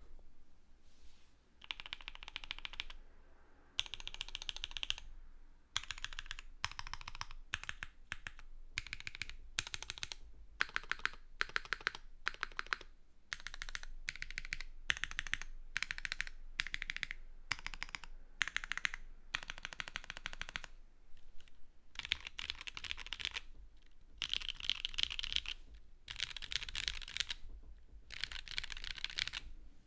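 Typing on a Moontower v2 mechanical keyboard (polycarbonate case, full aluminium plate, GMK keycaps) with lubed, broken-in Novelkeys Cream switches. The keystrokes come in quick runs of clicks broken by short pauses.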